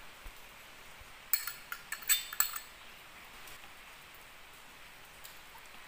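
A few light clinks of a small glass cup against a glass mixing bowl, bunched together about a second in, as seasonings are tipped into the bowl; otherwise only quiet room tone.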